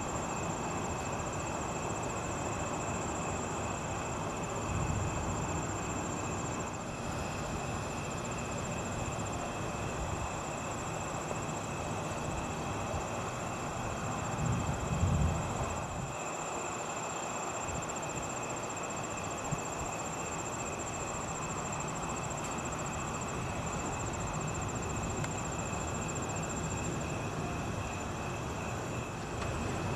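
Night outdoor ambience: a steady hiss with a continuous high insect trill, and low rumbles swelling about five seconds in and again around fifteen seconds in.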